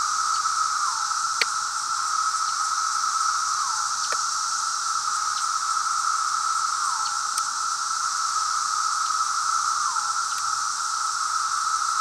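Dense, steady chorus of Brood X periodical cicadas, with a male's courtship call ending in a falling slur about every three seconds. Each slur is answered about half a second later by a sharp click of a toggle light switch, imitating a female's wing flick.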